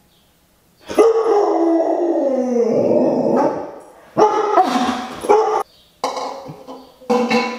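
Siberian husky howling in a tantrum: one long howl that slides down in pitch, starting about a second in, then three shorter howling calls.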